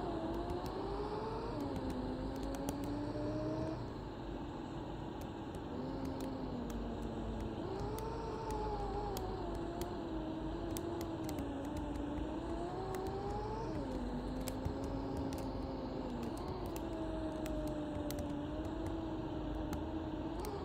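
Mercedes-Benz OC500LE city bus on the move, heard from on board: a whine from the drivetrain that rises as the bus gathers speed and drops abruptly several times at gear changes, over a steady engine and road rumble, with light rattling ticks.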